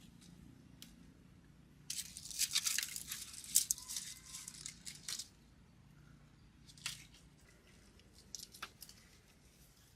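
Crackly rustling and tearing of plant foliage being handled as tomatoes are picked, densest from about two to five seconds in, then a few sharp snaps.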